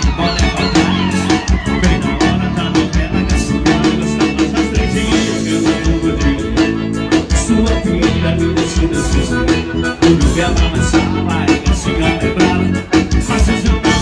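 Live forró band music played loud through a sound system, with a steady beat throughout.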